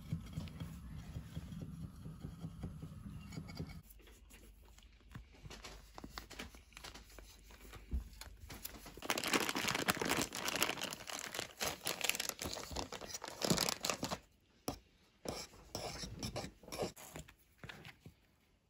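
Cake-making sounds: a knife cutting through sponge cake, then a spoon stirring and scraping sour cream and powdered sugar in a metal saucepan. The stirring is loudest in the middle. Near the end come the soft tearing and crumbling of sponge broken into pieces by hand.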